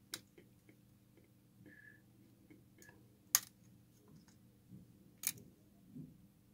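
Small tools and phone parts clicking and tapping during handwork on a smartphone: three sharp clicks, the loudest about a third of the way in, with fainter ticks between, over a low steady hum.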